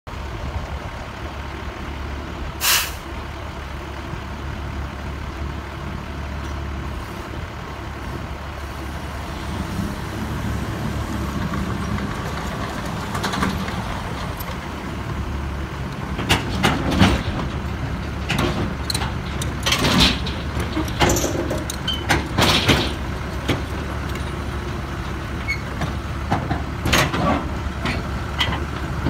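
Crawler dozer's diesel engine running steadily as it drives onto a trailer, with a short sharp burst of noise about three seconds in. From about halfway, its steel tracks clank and knock repeatedly as it climbs the trailer ramps.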